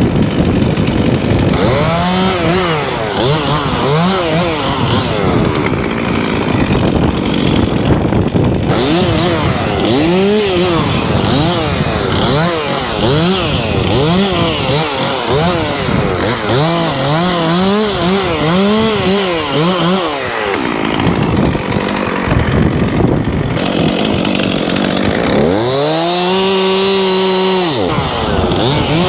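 Petrol chainsaw running under a felling cut, its engine note swinging up and down over and over as the throttle is worked, then holding steady and high for a couple of seconds near the end.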